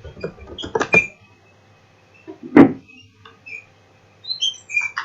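Birds chirping in short high calls, with a cluster of clicks about a second in and one loud knock midway through.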